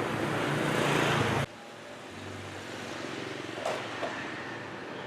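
Street traffic noise from motor scooters and cars, a loud rushing wash for about the first second and a half, then cutting abruptly to quieter traffic with two brief sharper sounds about two thirds of the way through.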